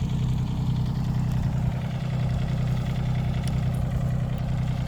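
Mini excavator's diesel engine running steadily at a constant speed, a low even hum with no revving.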